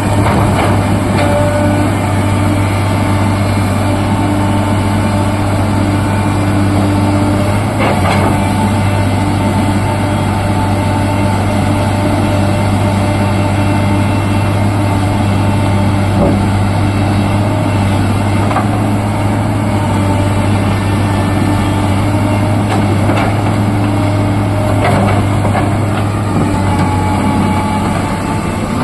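Excavator's diesel engine running steadily under load, with a few short knocks of the bucket against rock scattered through.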